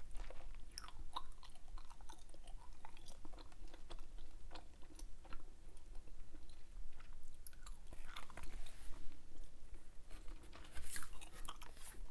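Close-mouthed chewing of soft Hubba Bubba bubble gum, with many small irregular clicks. The gum is too soft to snap.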